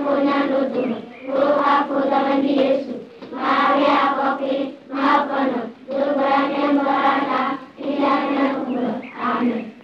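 Group of schoolchildren singing a morning prayer together in unison, in phrases of a second or two with short breaks between them.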